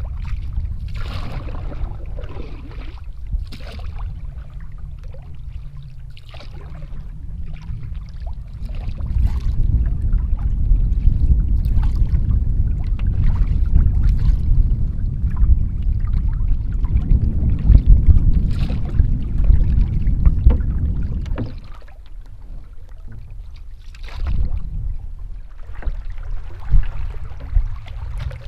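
Canoe paddle strokes through lake water, a short splash and swish every second or so, with wind rumbling on the microphone. The wind grows heavier from about a third of the way in and drops away about three quarters through.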